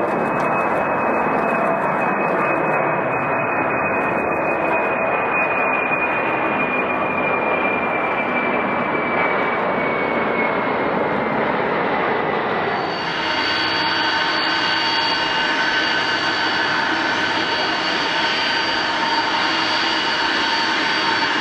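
Jet engines of a four-engined airliner: a loud, steady rush with a thin whine that slowly falls in pitch. About thirteen seconds in, the sound cuts abruptly to another aircraft's engines, a steady rush carrying several high, even whining tones.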